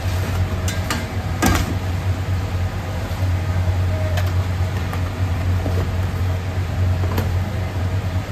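Steady low hum of a running conveyor pizza oven's fan and motor. A few light knocks and clicks from a metal pizza peel and a cardboard pizza box being handled, the loudest about one and a half seconds in.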